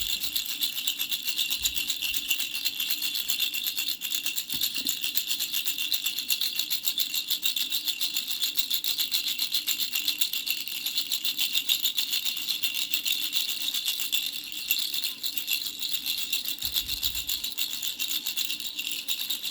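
Baby rattle shaken quickly and without pause: a dense, steady rattling.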